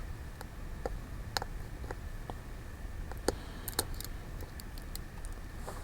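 Scattered small clicks and ticks of plastic and metal repair tools working on the opened iPhone 5, at the step of prying the battery connector up from its socket, over a low steady hum.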